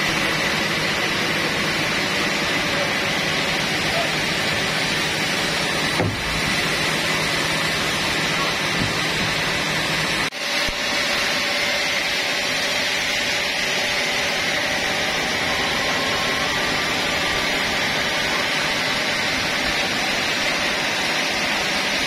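Sawmill machinery running steadily, a continuous mechanical hum and whine that dips briefly twice.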